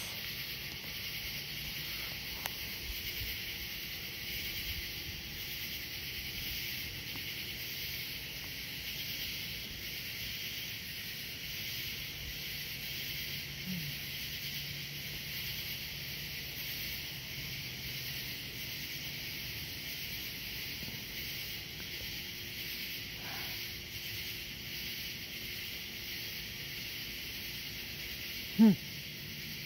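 Steady high hiss of an evening outdoor background, with a brief, loud vocal sound near the end.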